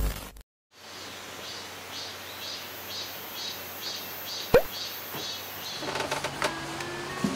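Outdoor ambience: a steady hiss with a faint high chirping that repeats about two to three times a second, as of insects. A single sharp, short sound about halfway through stands out as the loudest moment, and a few light clicks follow near the end.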